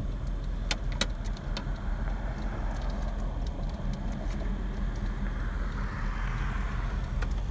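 Car driving, with steady road and tyre rumble heard from inside the cabin and a few light clicks or rattles about a second in and again near the end.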